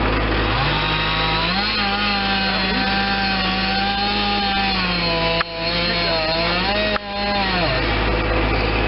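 Gas chainsaw revving up to full speed about half a second in and running under load as it cuts into the base of a dead tree trunk, its pitch wavering slightly during the cut. It drops back toward idle near the end.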